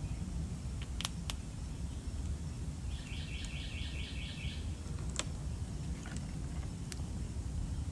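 Outdoor background with a steady low rumble and a few isolated sharp clicks; about three seconds in, a bird gives a quick trill of about eight short high chirps lasting under two seconds.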